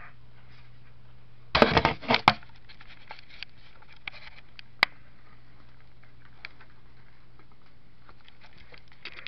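Handling noise as the camera is moved: a burst of loud knocks and rubbing about a second and a half in, then scattered small clicks and one sharp click near the middle, over a steady low hum.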